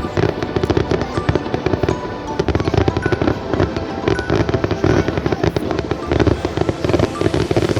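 Aerial fireworks going off in a rapid, unbroken string of bangs and crackles.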